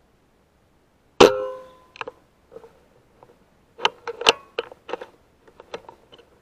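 A single air rifle shot about a second in, a sharp crack with a short ringing tail, followed by a scattered run of smaller clicks and knocks as the rifle is handled.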